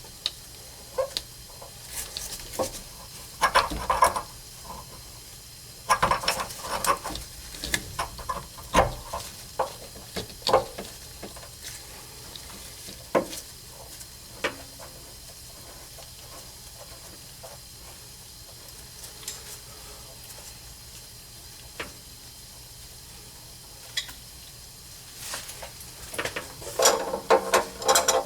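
Irregular clicks, knocks and scrapes of metal plumbing parts and tools being handled as a pipe-doped threaded fitting on a water heater is put back together. They come in bursts with a lull in the middle.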